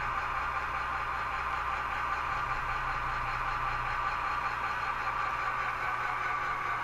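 HO-scale model locomotive's sound decoder playing a steady engine-running sound through its small onboard speaker.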